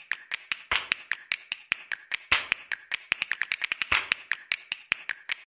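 Rapid run of sharp clicks and snaps, about six a second, with a few louder ringing hits among them, stopping abruptly near the end: a percussive intro sound effect.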